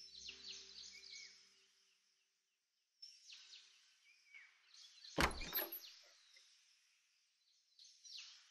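Faint birds chirping. About five seconds in comes a single thunk from a door, with a brief rattle just after it.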